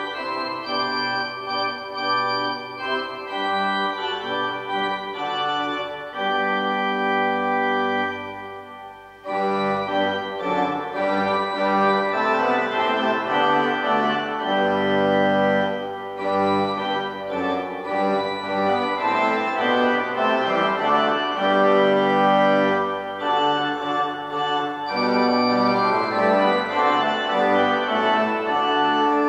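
Organ playing slow music in held chords, with a brief pause about nine seconds in before it comes back in.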